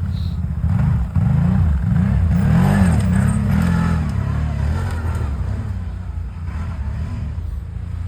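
Quad bike engine revving, its pitch rising and falling several times as the throttle is worked.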